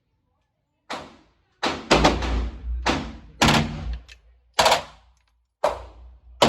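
Gunshots from semi-automatic firearms at a shooting range: about eight single sharp reports, irregularly spaced, some fired in quick pairs, each with a short echoing tail.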